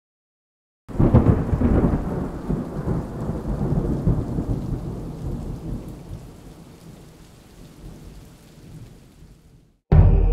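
A clap of thunder that breaks in suddenly about a second in and rumbles away over several seconds, with a hiss of rain beneath it. Music starts just before the end.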